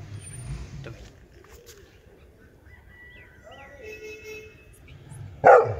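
One loud bark from an adult yellow Labrador retriever near the end. Before it, a few seconds of quieter sound with short bird calls.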